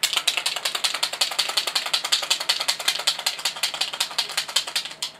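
Rapid, even ratchet-like clicking, about ten clicks a second, that starts and stops abruptly.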